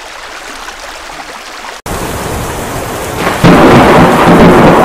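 Floodwater rushing in a steady hiss, cut off abruptly into heavy rain. About three and a half seconds in, a loud thunderclap breaks and rumbles on over the downpour.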